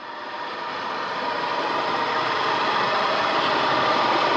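Airflow noise in the cockpit of a DG-505 two-seat glider in flight: a steady rushing hiss with a few faint steady whistling tones, swelling up over the first two seconds. The recording is sped up to 250% with the pitch kept, which gives it a jet-like sound.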